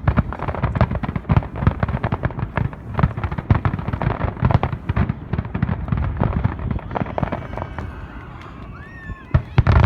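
Aerial fireworks bursting in rapid succession, a dense run of bangs and crackles that thins out about seven seconds in, with a short gliding tone in the lull before loud bursts start again near the end.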